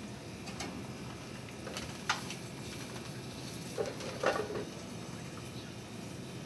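Salmon frying in a hot pan on a gas range, a steady sizzle. A few short clatters of the pan or a utensil come about two seconds in and around four seconds in.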